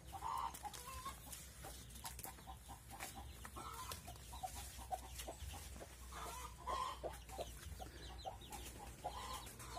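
Chickens clucking quietly with short calls every second or two, over light crackling steps through dry leaves and twigs.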